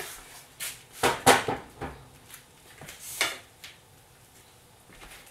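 A series of knocks and clunks as a wooden cutting board and kitchen things are handled and set down on a stovetop, the loudest about a second in, with a shorter scrape around three seconds.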